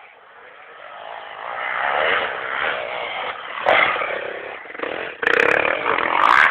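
Dirt bike engine revving as the bike rides past close by, building over the first two seconds and peaking a little under four seconds in, then a second loud burst of revving over the last second and a half.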